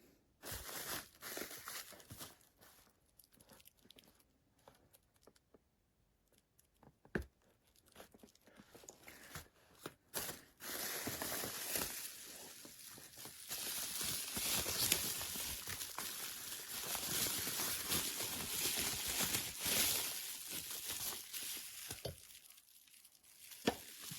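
Packaging being handled and torn open, crinkling and rustling. It comes in scattered rustles with a sharp knock at first, then turns to continuous crinkling from about ten seconds in, easing off near the end.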